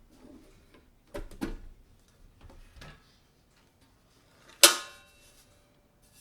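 Clicks and knocks of an HP 600 G1 small-form-factor desktop case being handled, with a loud sharp metallic clack and a brief ring about four and a half seconds in.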